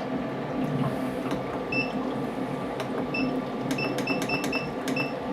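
Short electronic beeps from a humidifier controller's keypad as its buttons are pressed to change the humidity setting: a couple of single beeps, then a quick run of them near the end. Under them is the steady hum of the running humidifier and its fans.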